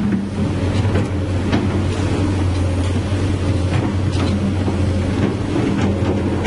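Komatsu PC200-8 hydraulic excavator's diesel engine running steadily under digging load, a loud low hum, with a few short clicks as the bucket works the soil.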